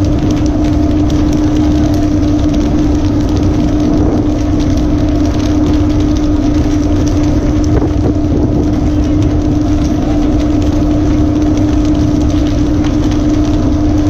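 Fishing boat's engine running steadily: a constant hum over a continuous rushing noise.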